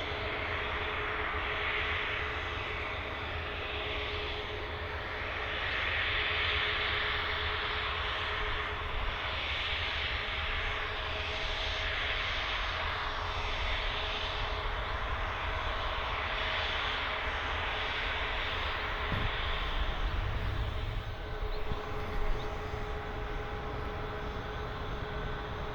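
Jet engines of a Ryanair Boeing 737 landing: a steady jet noise with a whine that swells and eases, dropping slightly near the end.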